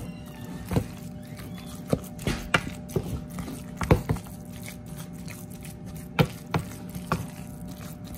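Salmon patty mixture being stirred and mashed in a mixing bowl: irregular clicks and knocks against the bowl, over a steady low hum.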